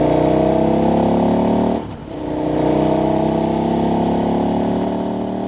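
KTM 1290 Super Adventure's V-twin engine pulling under load, its pitch climbing steadily; about two seconds in it dips briefly for an upshift, then climbs again from a lower pitch. A steady rush of wind and road noise runs under it.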